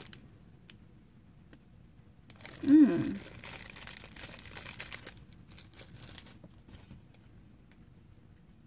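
Wrapping of a bath bomb rustling and crackling as it is handled and peeled open, in scattered crackles from about two to seven seconds in. A brief falling hum from a voice about three seconds in is the loudest moment.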